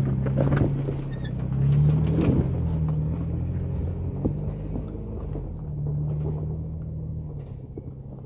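Nissan Xterra's 4.0-litre V6 pulling at low speed in four-wheel-drive low as the truck crawls up a rutted dirt climb, with scattered clicks and crunches of tyres over rocks. The engine swells twice, and the sound fades as the truck climbs away.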